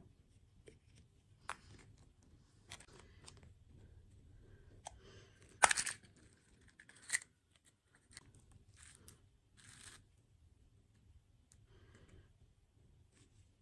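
Food packaging being handled and torn: scattered small clicks and crinkles, with a loud sharp crackle about six seconds in and a shorter one about a second later.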